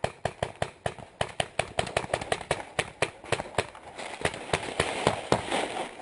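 Magfed paintball marker firing a rapid string of shots, about six a second, which becomes less regular in the last couple of seconds.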